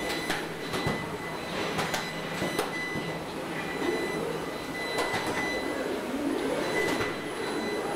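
Industrial robots spot-welding a steel car body: servo motors whining up and down in pitch as the arms move, with sharp clicks and clanks from the welding guns over a steady machine hum and a faint high tone.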